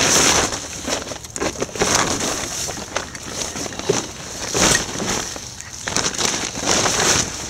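Uneven bursts of crunching and rustling noise, about one a second.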